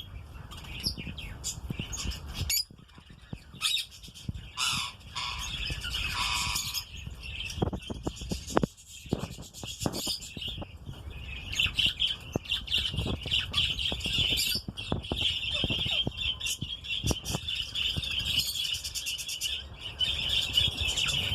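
Lovebirds chattering with a dense, continuous run of rapid shrill squawks and chirps, joined by scattered low knocks.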